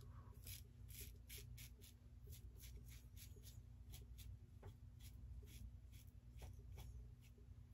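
Stainless open-comb safety razor scraping through lathered stubble on the neck in short, quick strokes, about three a second, faint and scratchy.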